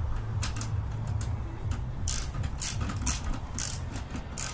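Hand ratchet wrench clicking as bolts are tightened into a steel seat slider bracket. A few strokes come early, then a steady run of about four clicks a second from about halfway through.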